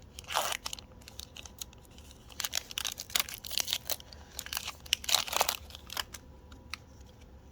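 Handling of Pokémon trading card booster packs: foil pack wrappers crinkling and cards rustling and clicking in short, irregular bursts, busiest in the middle.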